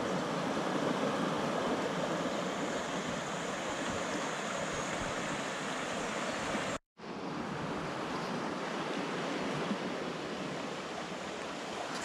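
A small forest stream rushing steadily over a shallow drop, a continuous watery rush broken by a brief gap of silence about seven seconds in.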